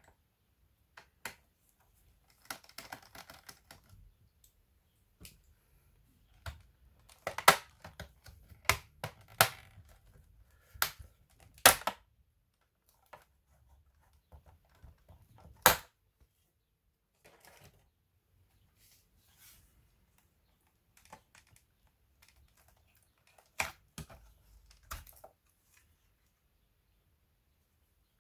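Hard plastic laptop parts and small tools clicking and clacking as a Samsung RV518 notebook is taken apart: scattered sharp clicks, a cluster of the loudest about 7 to 12 seconds in and a few more near the end.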